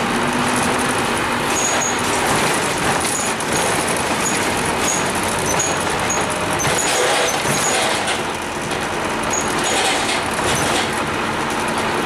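Scania N230UD double-decker bus driving along, its diesel engine and road noise heard from inside the passenger cabin, with a few short high squeaks scattered through it.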